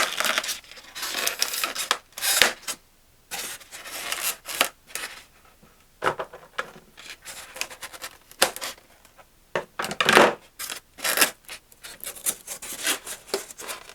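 Hands unpacking a small RC plane kit: packaging rubbed and scraped and sticky tape pulled off, in irregular short bursts with brief pauses.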